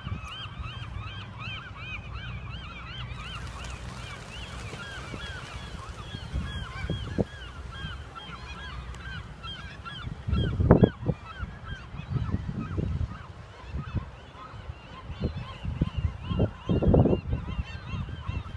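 A big flock of marbled godwits calling, many short nasal, honk-like calls overlapping in a constant chatter that thins out about halfway through as the flock takes flight. From about ten seconds in, irregular bursts of low rumbling become the loudest sound.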